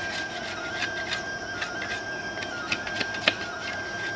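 Wooden sticks clicking and knocking together as they are handled on the ground, with one sharp knock about three seconds in. A steady high-pitched tone runs underneath.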